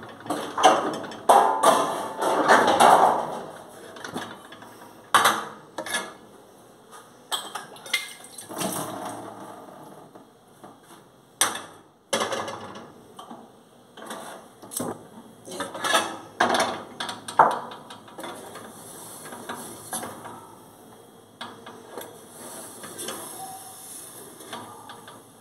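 Metal pots, a frying pan and a lid clattering on a gas stove's grates as they are handled and set down: a string of sharp clanks and knocks, busiest in the first few seconds and again about two-thirds of the way in.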